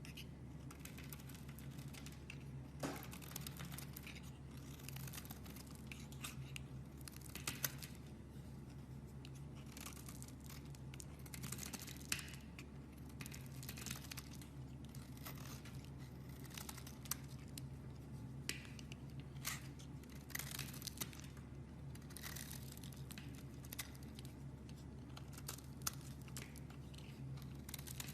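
Slime being stretched, squeezed and pulled apart by hand, with irregular crackling, tearing and small sharp pops throughout, over a steady low hum.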